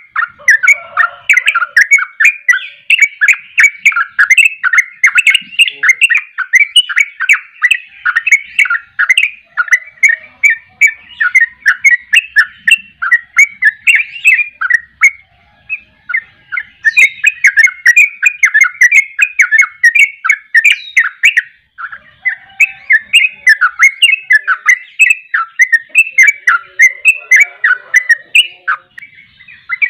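Yellow-vented bulbul singing a fast, unbroken run of chattering notes, the rapid-fire 'ropel' style prized by bird keepers, pausing briefly about halfway through and again about two-thirds through.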